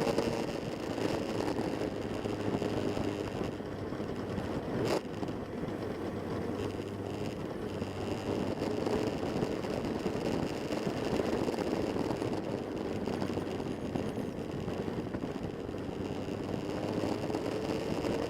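Motorcycle engine running steadily under way, a continuous drone mixed with wind and road noise, with a single sharp click about five seconds in.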